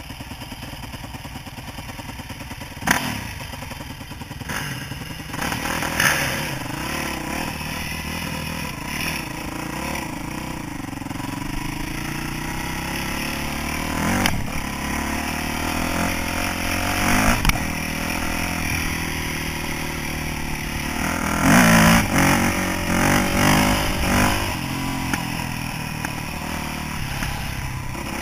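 Yamaha YZ426F single-cylinder four-stroke dirt bike engine running under way, the revs rising and falling with the throttle, with louder surges near the end. A few sharp knocks and some clatter come through from the bike over rough gravel.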